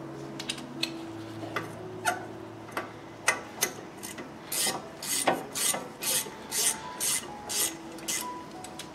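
Rust being scraped off a car's front wheel hub with a hand tool. A few sharp scrapes and clicks come first, then from about halfway a run of rhythmic rasping strokes, roughly two a second.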